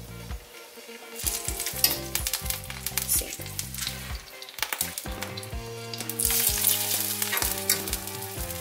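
Seasoned chicken thigh pieces sizzling as they are laid one by one into a skillet of hot oil and water, with many small crackles. The sizzle starts about a second in and gets louder after about six seconds as more pieces go in.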